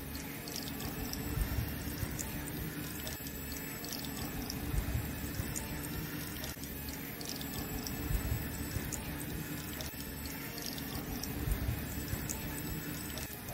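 A thin stream of water from a miniature DC water pump splashing onto soil and leaves, over the steady hum of the pump motor.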